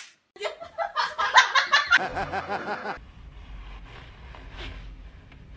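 A person laughing in short repeated bursts for about two and a half seconds, then only a faint low room hum.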